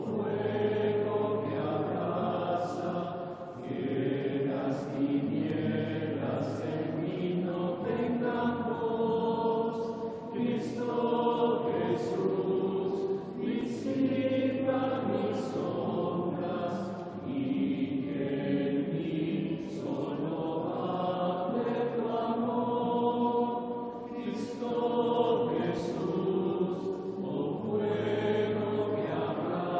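A group of voices singing a slow, repetitive Taizé chant in Spanish, in phrases of a few seconds with brief breaths between them.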